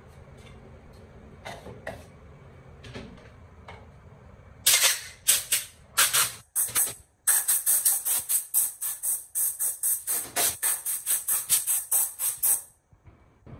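A hand scraper scraping the glass of a CRT picture tube in quick, harsh, high-pitched strokes, about four a second, starting about a third of the way in. Before that there are a few soft brushing strokes.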